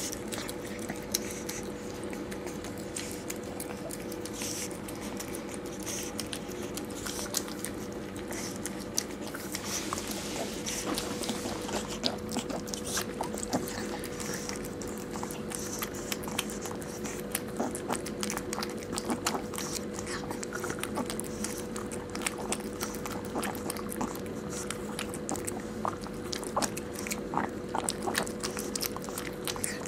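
Pug licking and chewing at a rubber Kong toy filled with peanut butter: a continuous run of wet smacks and small sharp clicks.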